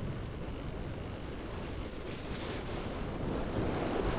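Steady rushing noise of wind and sea water, even throughout, with no distinct sounds standing out.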